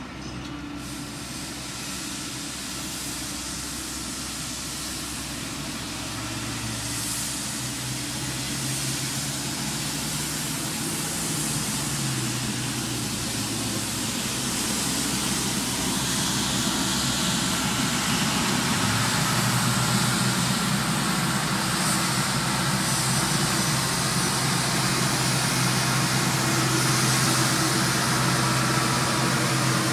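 Elgin Pelican street sweeper running as it works along the street: a steady low engine hum under a broad hiss, growing steadily louder as it approaches.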